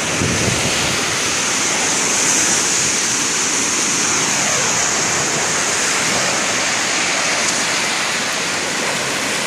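Ocean surf breaking and washing up a sandy beach: a steady rushing hiss.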